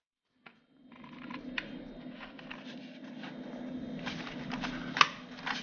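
Small plastic clicks and creaks as the snap-fit plastic housing of a steam iron is pried apart by hand, its clips popping loose, with a sharper snap about five seconds in. A steady low hum runs underneath, after about a second of silence at the start.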